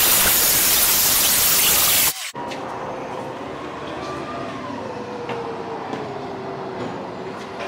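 Handheld circular saw cutting through wood, a loud, steady noise of the blade in the cut that stops abruptly about two seconds in. After that comes a much quieter background with a faint hum slowly falling in pitch.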